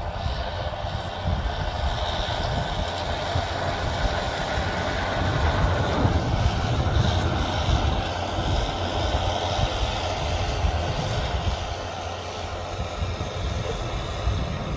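John Deere 6930 tractor's six-cylinder diesel engine running steadily under load while it pulls a cultivator through the soil. It grows loudest about halfway through as the tractor passes nearest, then eases off.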